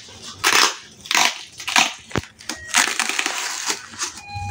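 Cardboard packing box being cut and pulled open by hand: a run of irregular scraping and ripping noises, with a sharp click about two seconds in.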